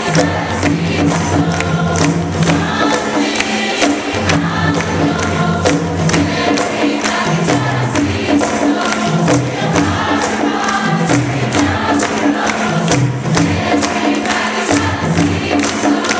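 Large mixed choir singing together over a steady, fast beat of about two to three strikes a second, with a moving bass line underneath.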